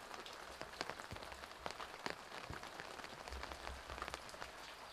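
Rain falling, with many separate drops striking wet ground.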